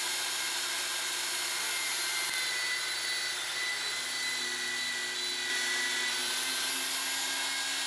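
Electric power tool cutting through a piece of 3/8 inch steel rebar: a steady high-pitched whine and hiss that cuts off suddenly at the end.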